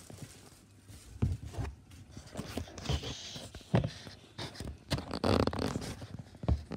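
A plastic bag crinkling and a cardboard box knocking as hands work in mushroom-kit compost, in irregular rustles with a few sharp knocks.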